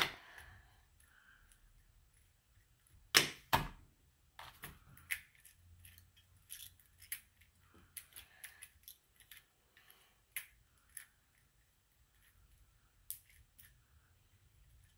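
Super Floppy cube (a one-layer 3x3 puzzle) being speed-solved, its plastic layers flipped in quick, irregular clicks and clacks. A louder pair of knocks comes about three seconds in.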